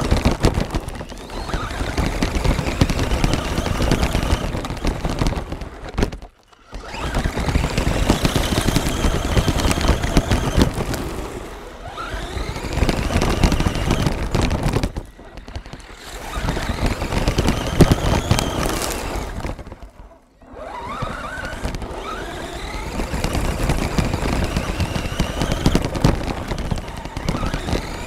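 Onboard sound of a Redcat Volcano RC truck driving on gravel: its motor whines up and down in pitch with the throttle over a constant crackling rattle of stones and chassis. The sound drops away briefly twice, when the truck eases off.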